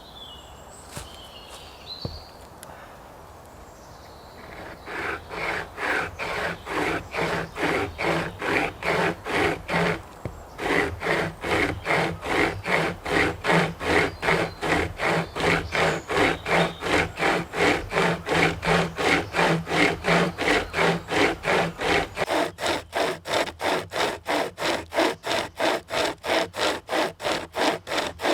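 A hand chainsaw (pocket chain saw) cutting through a thick log of dry ash, its chain rasping through the wood in even back-and-forth pulls, about two a second. The strokes start about five seconds in, pause briefly near the middle, and speed up to about three a second near the end.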